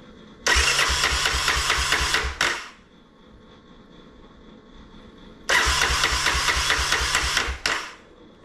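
A 1985 Honda ATC 250SX's four-stroke single-cylinder engine being cranked on its electric starter in two bursts of about two seconds each, with an even pulse about five times a second. It turns over but does not catch: the engine won't start.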